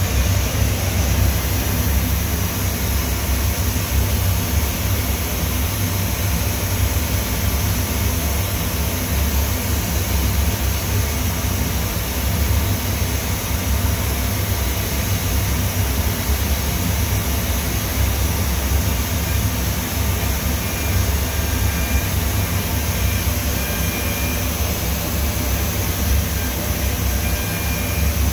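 Hwacheon G1 graphite CNC machining center running, its high-speed spindle and end mill cutting a graphite block: a steady mechanical noise with a heavy low rumble. Faint, short high tones come and go near the end.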